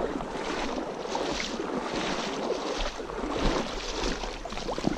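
Creek water sloshing and splashing close by as a steelhead is held and moved in the water for release, with some wind rumble on the microphone.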